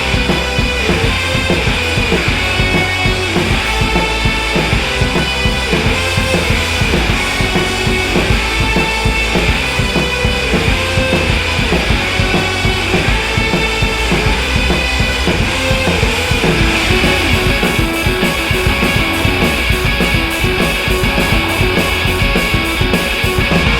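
Background rock music with drums and guitar, playing at a steady beat; about two-thirds of the way through, a faster cymbal pattern comes in.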